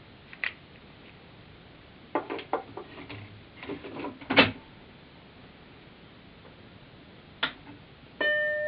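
A 3.5-inch floppy disk being pushed into an original Macintosh's drive: a run of clicks and clunks, the loudest about four and a half seconds in. Near the end comes a single click, then the Mac's startup beep, one steady tone.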